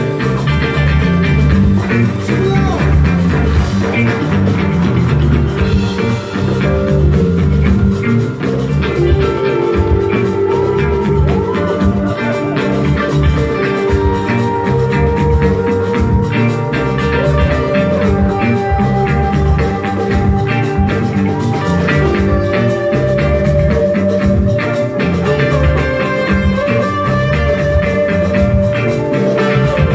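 Live band playing an instrumental jam on electric guitars, drum kit and bongos with a steady beat. A semi-hollow electric guitar plays a lead line with bent notes over the band.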